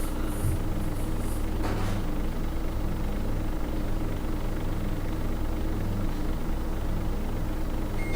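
Steady low mechanical hum with no change in level throughout.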